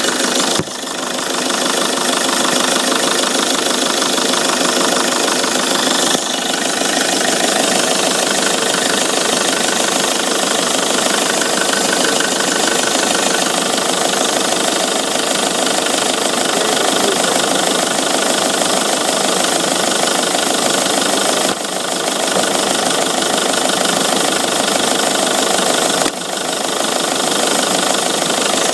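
Peugeot 307's 2.0 HDi 136 four-cylinder turbodiesel running steadily, loud and full of high-pitched noise, with a few brief dips in level. It carries the abnormal noise the owner cannot explain, in a video tagged for turbo whistle and smoke.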